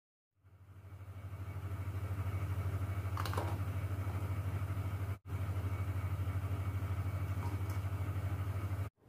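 A steady, low hum with a fast, even pulse, like a small motor running. It fades in at the start, breaks off for an instant about five seconds in, and has a faint click about three seconds in.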